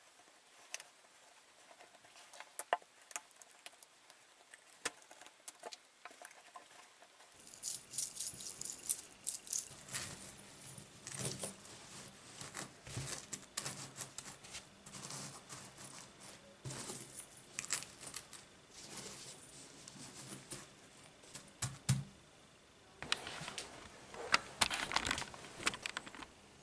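Chainmail rings clinking and jingling as the mail mesh is worked with pliers and handled: irregular light metallic clicks, busier after the first few seconds, with a dense flurry of jingling near the end.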